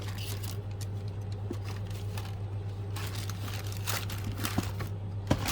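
Crinkling rustle of shoe packaging paper and cardboard being handled, in scattered bursts, with a sharp knock near the end.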